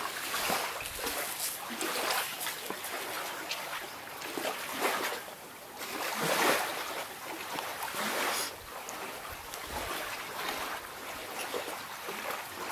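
Wet splashing and scraping in irregular surges: hands digging into a wet den in beach mud after a worm.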